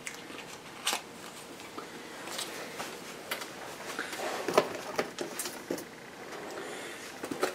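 Light rustling and scattered small clicks and knocks of merchandise and packaging being handled and rummaged through in a box.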